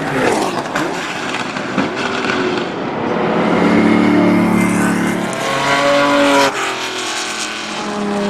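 Ferrari 512 M's five-litre V12 racing engine heard onboard under hard acceleration, its pitch climbing, with a sudden drop about six and a half seconds in as the driver changes gear.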